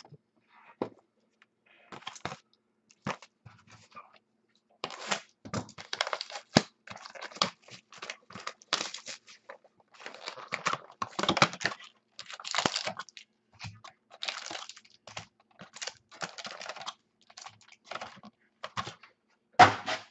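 Plastic shrink-wrap being torn off a sealed trading-card box and crumpled, then crinkling packaging as the box is opened and its packs are taken out. There are a few light clicks at first, then dense irregular crackling from about five seconds in, with one sharp loud crack near the end.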